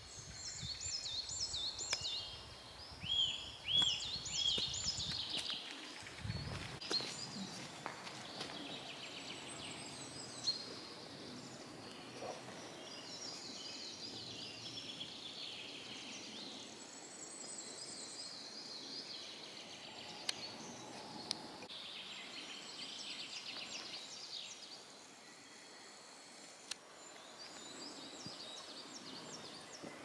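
Several songbirds singing at once, in overlapping phrases of quick, repeated high notes. A low rumble sits under the song for the first six seconds or so, and a few sharp clicks come later.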